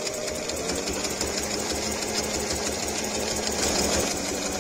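Domestic electric sewing machine running at a steady speed, its needle stitching a long straight hem in an even, rapid rhythm over the hum of its motor.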